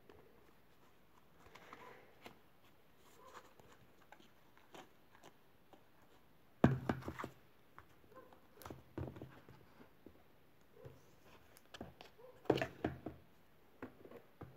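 Cardboard model gun being handled close to the microphone: scattered light clicks, taps and rustles, with two louder clusters of knocking and rubbing, one about halfway through and one near the end.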